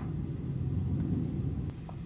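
A low steady rumble, with a single light tap of a kitchen knife on a wooden cutting board near the end, in a pause between mushroom slices.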